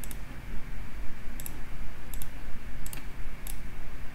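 Computer mouse clicking, a handful of short sharp clicks, several in quick pairs, over a low steady hum.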